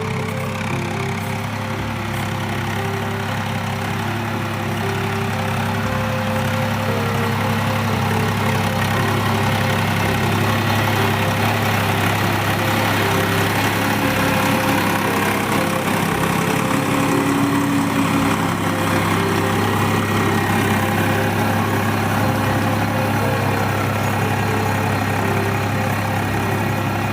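Tractor engine running steadily with a constant low hum, a little louder after about ten seconds.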